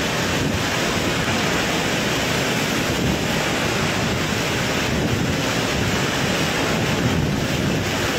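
Super typhoon winds and torrential rain, a loud, steady rushing, with wind buffeting the microphone.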